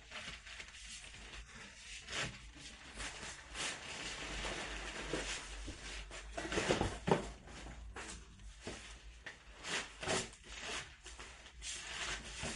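Handling noises of a bed being unpacked: irregular rustling and scraping with scattered knocks, and a cluster of louder knocks about seven seconds in.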